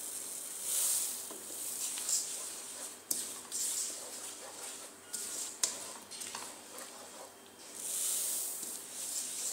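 Sesame seeds pouring into a nonstick pan of melted sugar with a hissing rustle, once just after the start and again near the end. Between the pours a wooden spoon stirs the seeds, with a few sharp clicks against the pan.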